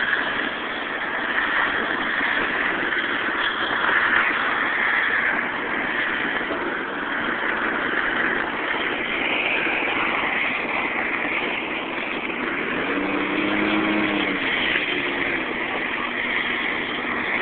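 Steady rushing road noise of a vehicle driving along a gravel road at speed. A brief pitched sound bends up and down a little past the three-quarter mark.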